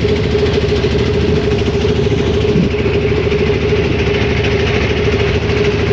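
Engine of a wooden river boat running steadily under way: an even, fast pulsing with a steady mid-pitched hum.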